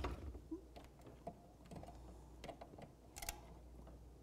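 Faint, scattered light clicks and taps of kitchen items being handled on a counter, with one sharper click about three seconds in.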